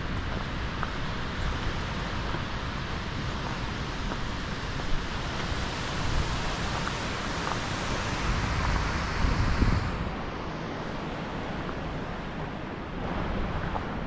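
Steady rushing of the Skógá river's falling water, with wind gusting against the microphone. The hiss thins a little about ten seconds in.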